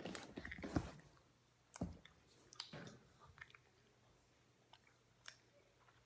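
Faint chewing and mouth clicks from a child eating gummy candy, in a few short bursts: a cluster at the start, then single ones spread through the rest.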